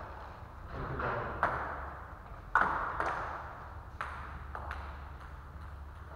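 Table tennis ball clicking sharply a handful of times as it is hit and bounces, each click ringing briefly in the hall's echo. The loudest click comes about two and a half seconds in.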